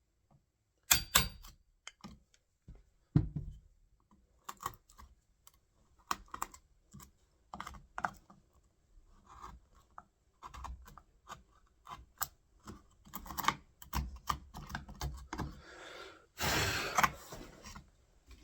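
Wood chisel being tapped and worked into the door edge to cut out the latch recess: irregular light knocks and clicks, the loudest two about a second and three seconds in, with a short scraping rasp near the end.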